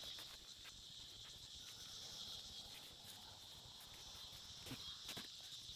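Faint, steady insect chorus, with a few soft rustles and light knocks from rope and airline being handled.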